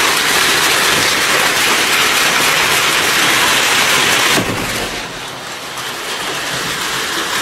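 Heavy storm rain mixed with hail pelting down, a dense steady hiss that drops to a somewhat lower level about four and a half seconds in.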